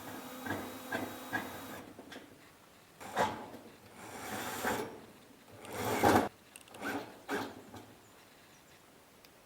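A series of separate rubbing and scraping sounds with a few light knocks, the loudest swell about six seconds in: objects being handled and shifted.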